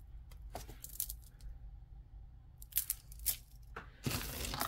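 Costume jewelry being handled: a few light clicks and clinks of beads and metal, then a plastic zip bag rustling near the end.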